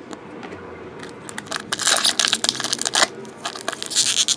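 Foil wrapper of a 2014 Topps Chrome football card pack crinkling and tearing as it is pulled open by hand. The crackling starts about a second in and comes in quick bursts, loudest in the middle and again near the end.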